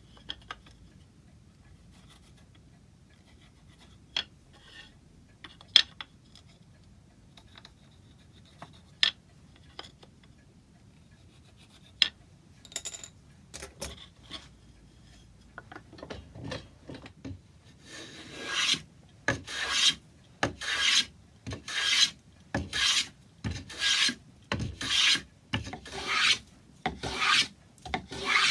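Scattered light clicks and taps, then from about two-thirds of the way in, a steady run of abrasive hand strokes on wood, roughly one stroke a second, as when filing, rasping or sanding timber by hand.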